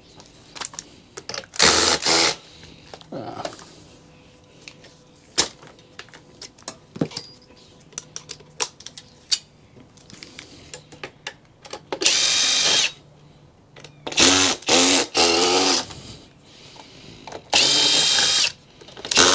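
Cordless power drill-driver running in several short bursts, its motor whining, as screws are backed out of a PC chassis. Light clicks and taps of metal parts and screws being handled fall between the bursts.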